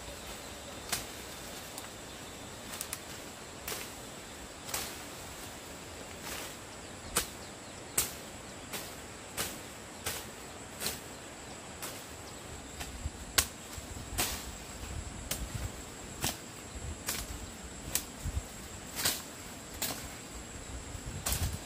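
A series of sharp knocks or strikes, irregularly spaced about once a second, over a steady faint hiss with a thin high-pitched hum.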